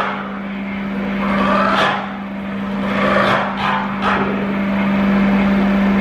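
Live electronic noise music: a steady low hum runs under repeated whooshing swells that rise and fall at uneven intervals.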